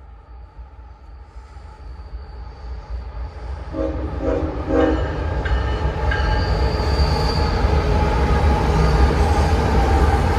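CSX freight train approaching, its diesel locomotives' rumble growing steadily louder. About four seconds in the horn sounds three quick short blasts. A thin, steady high whine joins the rumble as the train comes close.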